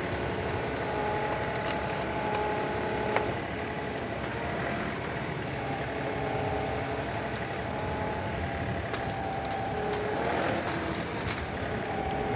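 John Deere compact tractor's diesel engine running steadily while hauling a heavy grapple load of cut limbs, its pitch shifting slightly with the throttle. A couple of sharp cracks come through about three seconds in and again near nine seconds.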